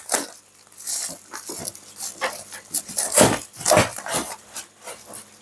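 Scissors cutting into a plastic courier mailer bag, the plastic crinkling and rustling in short irregular bursts.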